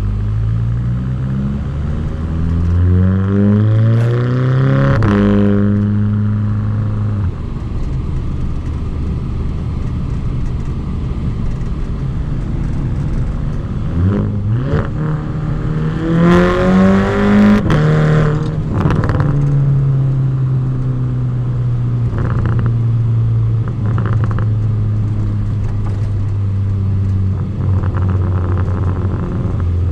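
Volkswagen Golf GTI Mk6 turbocharged 2.0-litre four-cylinder exhaust, recorded from outside the car while driving. The engine note rises under acceleration and drops at each gear change, twice: once in the first few seconds and again about halfway through. Between these the car cruises at a steady drone.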